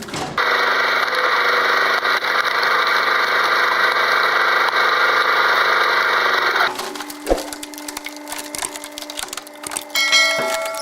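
Wood splintering and cracking: a loud, continuous crackling rush for about six seconds that cuts off suddenly, then scattered cracks and snaps with one sharp knock.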